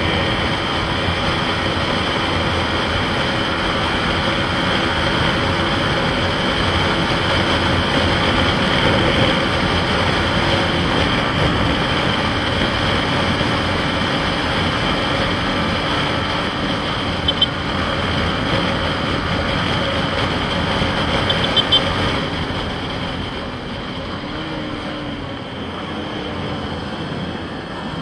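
Yamaha MT-15's single-cylinder engine running steadily at cruising speed, with road and wind noise. The engine note steps down slightly about eleven seconds in, and the sound gets a little quieter near the end as the bike eases off.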